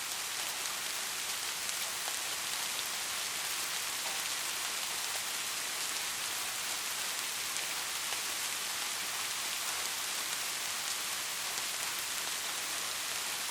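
Steady rain falling, an even hiss of many drops with small scattered taps from drops striking a surface.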